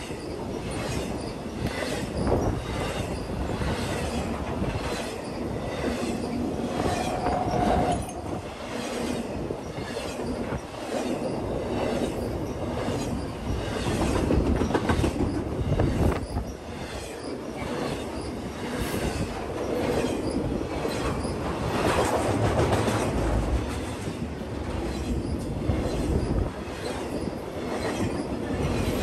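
BNSF intermodal freight train passing close by: steel wheels rumbling along the rails with a steady run of evenly spaced clicks over the rail joints, and a brief wheel squeal about seven seconds in.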